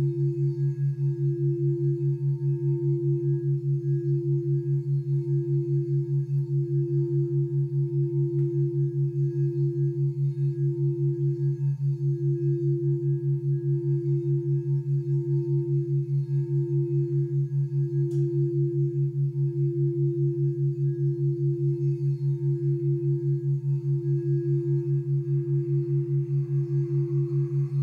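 A singing bowl rimmed with a wand, holding one steady ringing tone that swells and fades about once a second, with fainter higher overtones. Under it runs a louder low hum that pulses rapidly: the background tones used for brain entrainment.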